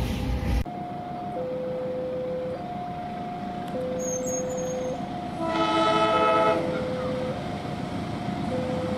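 Diesel locomotive horn sounding once, a chord of several notes held for about a second, about five and a half seconds in. Throughout, a two-note tone alternates high and low, each note about a second long.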